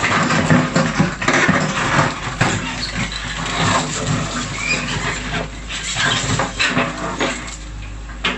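Hydraulic excavator's engine running while its steel bucket scrapes, knocks and crunches against broken concrete slabs and rubble, with chunks of concrete clattering.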